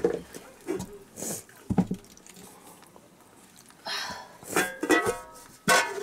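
Metal cooking pots, pans and lids clanking and scraping on a clay stove: a series of knocks, several ringing briefly, the loudest just before the end.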